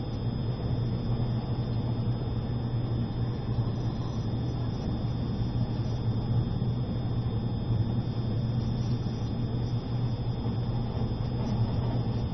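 Cabin noise inside an E653 series electric train under way: a steady low hum and running rumble.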